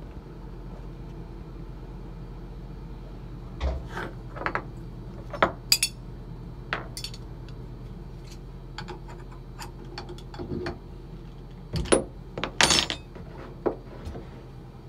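Scattered metal clicks and clinks of tools and small parts being handled while the bit is changed in a CNC router's spindle, starting a few seconds in and busiest near the end, over a steady low hum.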